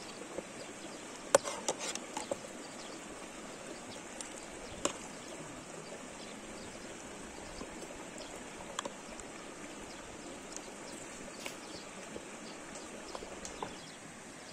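Steady outdoor background rush with scattered sharp clicks and taps, a small cluster of them about a second and a half in and single ones later.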